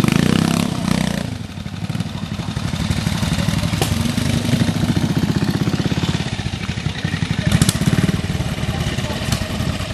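Vintage trial motorcycle engine running under throttle as the bike climbs a steep section, with a brief drop in power about a second and a half in, then pulling steadily again with another burst of throttle near the end.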